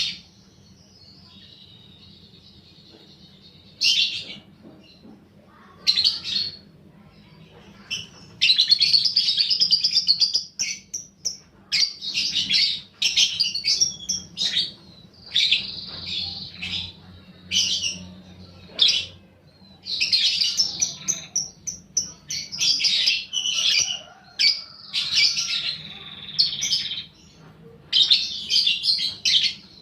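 Lovebird chattering in harsh, high-pitched bursts: a couple of short calls about 4 and 6 seconds in, then rapid, near-continuous runs of chatter from about 8 seconds on, the long 'ngekek' chatter used as a lure to set other lovebirds calling.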